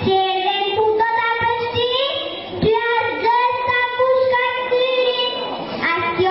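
Young schoolchildren singing a song, their high voices holding long notes.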